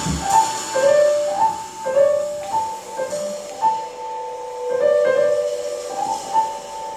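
Live jazz trio of drum kit, piano and hollow-body electric guitar playing a quiet passage: a drum hit right at the start, then slow, held single melody notes stepping between a few pitches over soft accompaniment.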